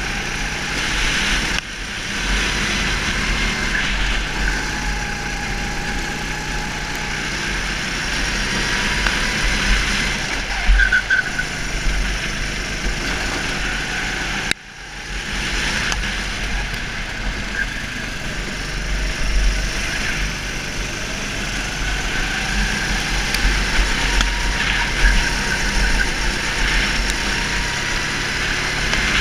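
Go-kart engine heard onboard, its note rising and falling as the throttle opens and lifts, with wind rumbling on the microphone. The sound drops sharply for a moment about halfway through, then comes back.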